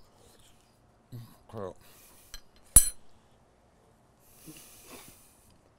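A short hummed voice sound from someone eating, then a metal fork strikes a small white bowl once with a bright, ringing clink about three seconds in. Soft breathy noises follow near the end.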